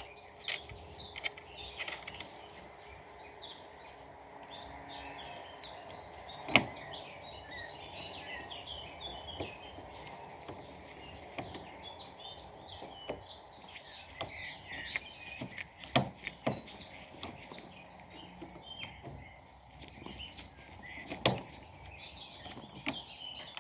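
Scattered sharp clicks and knocks of a screwdriver and plastic parts being handled on a Roomba robot vacuum, three of them loud, over a steady background noise with birds chirping throughout.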